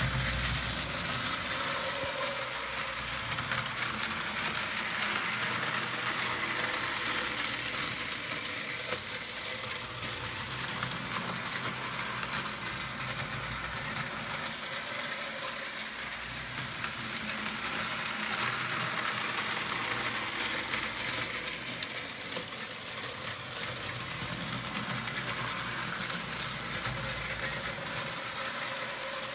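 Billerbahn tinplate toy train running around an oval of tinplate track: a steady, rattling clatter of its wheels and drive. It grows louder twice as the train passes nearest.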